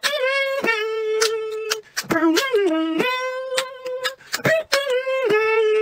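Beatboxing: a voice holds hummed or sung notes about a second long, stepping between pitches. Sharp mouth clicks and kick sounds punctuate the notes in a repeating loop.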